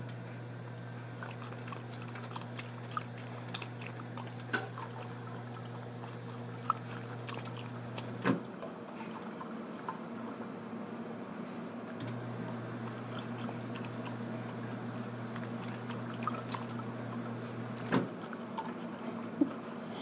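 Drinking-fountain water running and dripping, with scattered small clicks and splashes. A low steady hum stops about eight seconds in and comes back about four seconds later.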